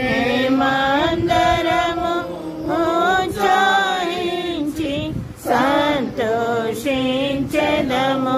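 A group of voices singing a slow Telugu Christian praise song together, holding each syllable in long, drawn-out notes.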